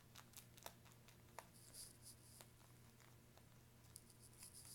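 Near silence: faint scratching and light ticks of a pen drawing on a mesh wig cap, over a low steady hum.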